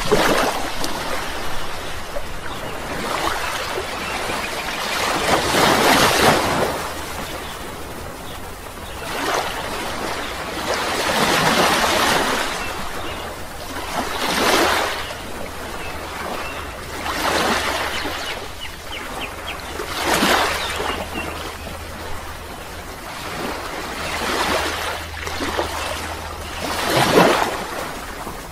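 Rushing water in repeated surges, each swelling and fading over two to three seconds, as of surf washing in.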